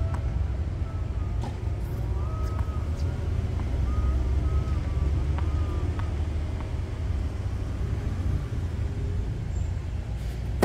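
Steady low rumble of outdoor background noise, with a few short sharp taps of a tennis ball bounced on a hard court before a serve.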